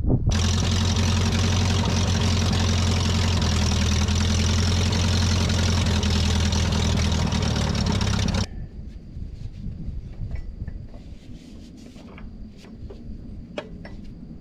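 An engine or motor running steadily at a constant speed for about eight seconds, then stopping abruptly, followed by faint clicks and handling noises.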